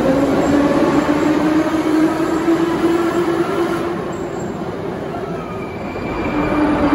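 New Year-decorated Ezh-3 metro train accelerating out along the platform, its traction motors whining in a slowly rising tone over the rumble of wheels on rails. The sound fades after about four seconds, and near the end a new whine starts as another train approaches.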